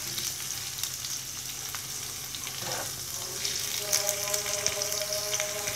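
Raw chicken wings sizzling and crackling in hot ghee with ginger-garlic paste in a nonstick frying pan. A faint steady tone joins about three and a half seconds in.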